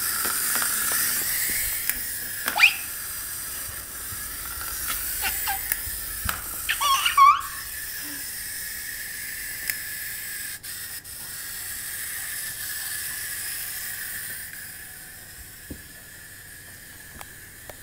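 A wind-up ladybug toy's clockwork motor running with a steady whir that fades away near the end, as the spring runs down. A toddler gives short squeals twice, about 2.5 and 7 seconds in.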